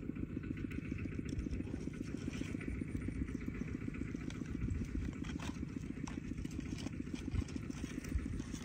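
A small engine running steadily, heard as a fast, even, low throb, with a few faint clicks over it.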